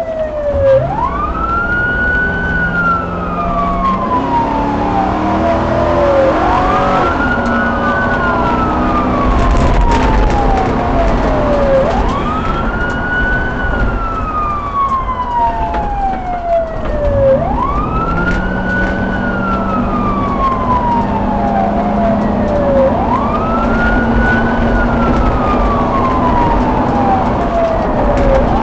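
Emergency vehicle siren on a slow wail, each cycle rising quickly and then falling slowly over about five seconds, repeating about five times. A lower hum winds up and holds near the start and again about two thirds of the way through.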